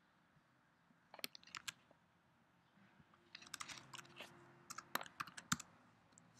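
Typing on a computer keyboard, in two bursts of keystrokes: a few about a second in, then a longer run from about three to five and a half seconds.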